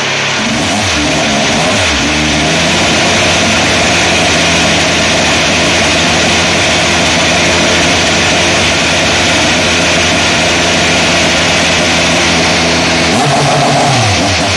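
Ilmor-built 2012 Chevrolet IndyCar 2.2-litre twin-turbo V6 running stationary just after start-up. A few quick revs come in the first two seconds, then it holds a steady idle, with rising and falling revs again near the end.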